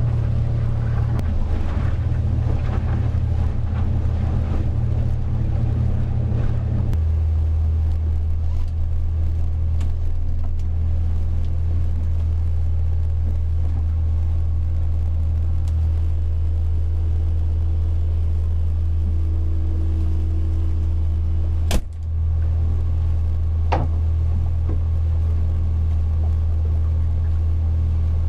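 Boat engine running as a steady low drone, heard inside the pilothouse cabin. About seven seconds in its pitch steps down as it is throttled back, and a single sharp click comes about three-quarters of the way through.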